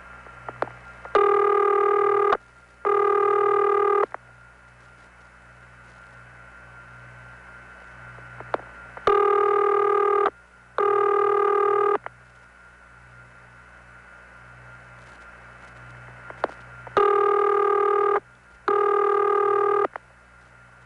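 Audible ringing tone from a small rural CX-1000 telephone office, heard over a long-distance trunk: three double rings, each a pair of buzzy tones a little over a second long, the pairs about eight seconds apart. A faint click comes before each pair, and a low hum and hiss from the N1 carrier line run underneath.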